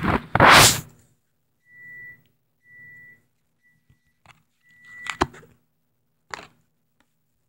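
Hockey trading cards being handled: a loud rustle in the first second, then knocks and taps as cards are shuffled, the loudest about five seconds in. Between these come four short whistle-like notes, each held steady at the same high pitch.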